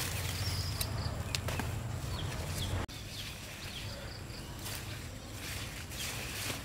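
Outdoor ambience: scattered short high chirps and a few sharp clicks over a steady low rumble. The sound cuts abruptly about three seconds in, and the rumble is quieter after the cut.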